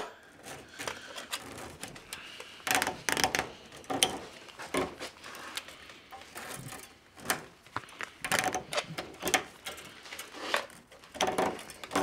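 Loose steel wire strands of a wire rope being handled and worked in a vise during a wire splice: irregular metallic clicks, scrapes and rattles, with louder clusters about three and four seconds in and again later.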